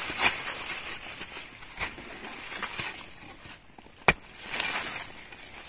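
Digging by hand in hard, dry soil: scattered scrapes and knocks of a tool against the earth, with one sharp click about four seconds in.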